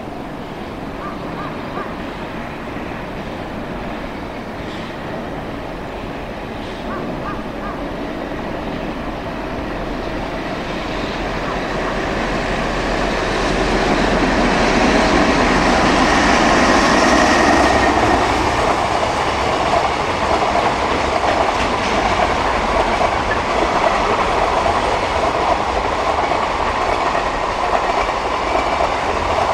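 A JR Freight container train hauled by an EH500 electric locomotive passing on the main line. The rumble grows louder through the first half and is loudest a little past the middle. It then settles into the steady clatter of the container wagons rolling over the rail joints.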